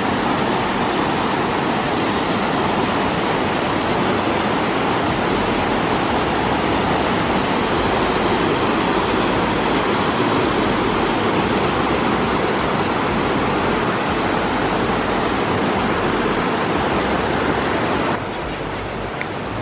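Creek water rushing over rocks and small cascades, a steady rush that becomes a little quieter near the end.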